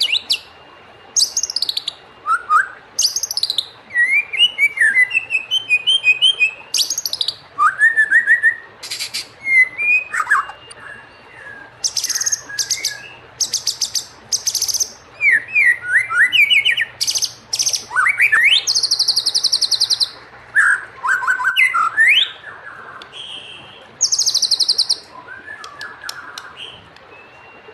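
White-rumped shama (murai batu) singing a varied song. Clear whistled notes slide up and down between short pauses, broken by fast, high rattling trills.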